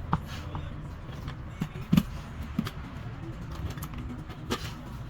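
Irregular sharp clicks and knocks over a low steady hum, the loudest knock about two seconds in.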